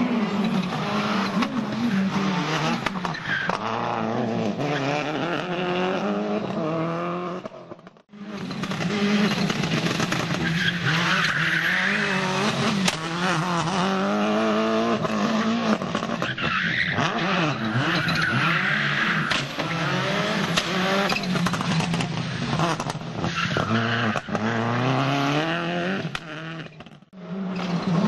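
A Subaru Impreza World Rally Car's turbocharged flat-four engine revving hard through rapid gear changes, its pitch climbing and dropping again and again, with tyre squeal on tarmac. The sound drops out briefly twice, a third of the way in and near the end, where the footage is cut.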